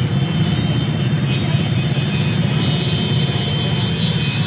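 Many scooter and motorcycle engines running together in a large crowd of bikes, a loud, steady mass of engine noise.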